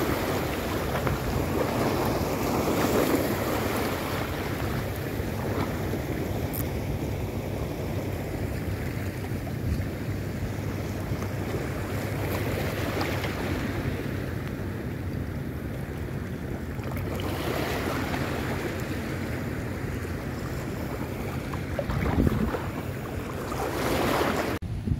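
Small waves washing in and out over a rocky shoreline, the surf rising and falling every few seconds, with wind buffeting the microphone.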